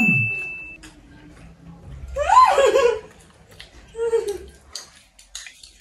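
A short bell-like ding at the start, one high ringing tone that fades within a second, then a person laughing about two seconds in, with a shorter laugh about four seconds in.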